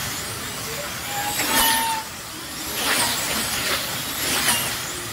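Slot cars racing: a high electric-motor whine that swells again and again as cars pass close by, several passes a second or so apart.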